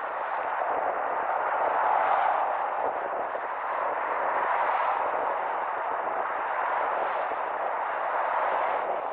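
Car driving in traffic: a steady rush of road and wind noise that swells and eases every couple of seconds.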